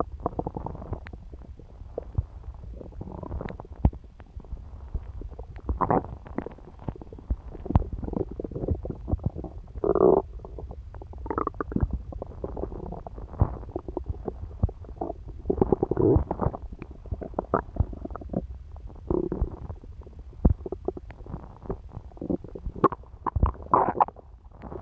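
Human stomach gurgling as it digests a pizza meal: irregular small pops and bubbling gurgles, with a few longer, louder gurgles every few seconds.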